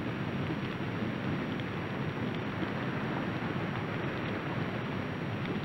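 Steady rushing, water-like noise with no pitch or rhythm.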